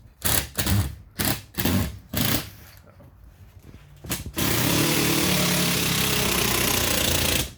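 Battery-powered tool's electric motor run at full speed for about three seconds, starting about four seconds in and stopping sharply, after a few short knocks of handling. The run shows the battery is good.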